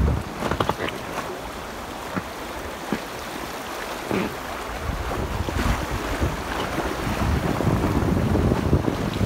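Shallow river water gurgling and splashing over rocks around a packraft drifting downstream, with wind buffeting the microphone as a low rumble that eases off for a few seconds and then builds again.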